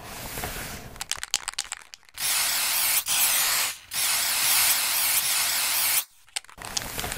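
Aerosol spray-paint can: a quick run of rattling clicks, then three long hissing sprays with short breaks between them, and more clicks and hiss near the end.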